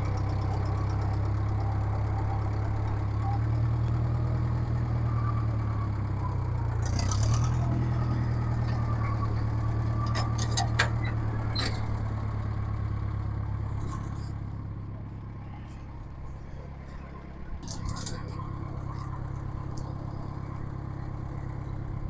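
John Deere loader tractor's engine running steadily, dipping in pitch briefly about a third of the way in, then throttling down before settling at idle near the end. A few sharp metallic clanks sound over it.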